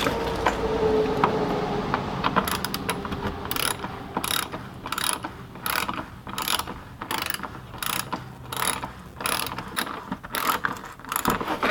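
Ratchet wrench being worked back and forth on a bolt, its pawl clicking in a steady run of strokes at about two a second.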